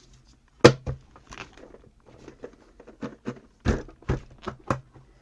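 Lid of a metal socket case shut with a sharp clack just over half a second in and a second clack right after, followed by a string of lighter knocks and clicks as the closed case is handled, the loudest of them about three and a half seconds in.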